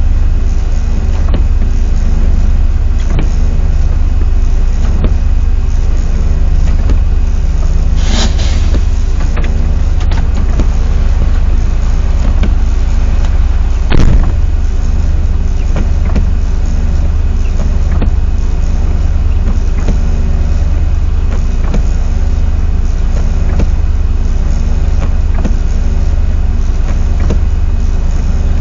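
Container truck driving, a steady low engine drone with road noise. A short hiss comes about eight seconds in, and a single sharp knock about fourteen seconds in.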